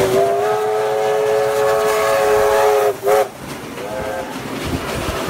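NSWGR C36 class steam locomotive 3642 sounding its steam whistle: one long blast of about three seconds, then a short toot, with a fainter toot about a second later, over the noise of the passing train.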